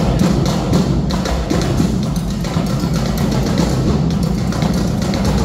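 Loud drum-heavy dance music with a fast run of drum hits over a booming bass drum.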